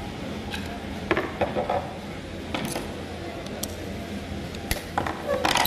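Irregular light metallic clicks and clinks of an Allen key and tools on the metal parts of a Jack A4 lockstitch sewing machine's thread-trimmer knife mechanism as it is adjusted, with the loudest cluster near the end.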